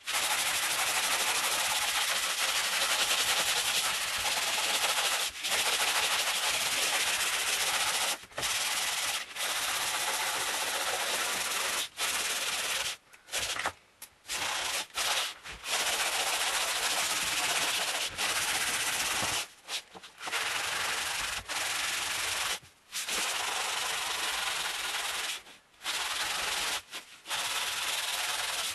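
Hand-sanding an old wooden tabletop with sandpaper on a block: a steady, rough hiss of strokes, broken by short pauses several times from about eight seconds in.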